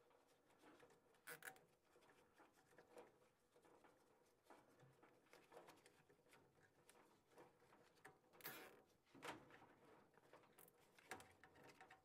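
Faint rustling and scattered light clicks of gloved hands gathering and bundling furnace wiring, with a few slightly louder scrapes.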